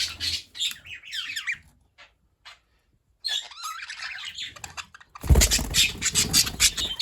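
A group of budgerigars chattering and squawking. The calls stop for about a second near the middle, then start again, and the loudest burst of squawks comes near the end.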